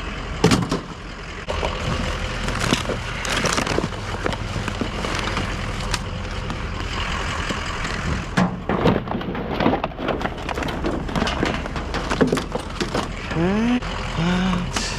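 Clattering and knocking of junk being handled and rummaged through, over the steady hum of a vehicle engine running. Near the end a brief voice-like sound rises in pitch.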